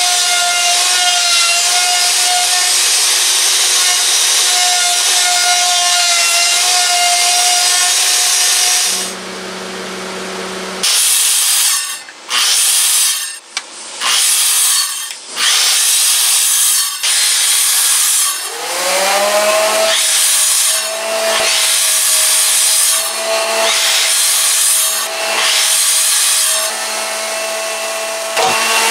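An electric plunge router running steadily as it cuts into a timber beam. Then a Makita circular saw is switched on in short bursts; about two-thirds of the way through it spins up with a rising whine and makes a run of repeated shallow cuts across the wood, each cut adding a rasping noise over the motor's whine.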